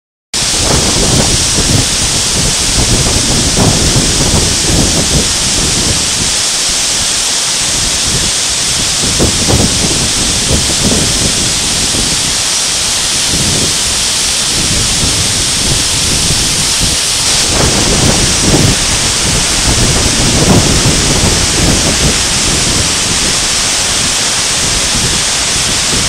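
A tall waterfall roaring: a loud, steady rush of falling water with uneven low rumbles, starting suddenly right at the beginning.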